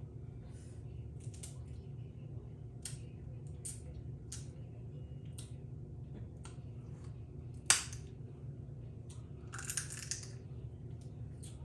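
Snow crab leg shells cracking and snapping by hand, with scattered sharp cracks, one loud snap about two-thirds of the way through and a quick run of crunching soon after, over a steady low hum.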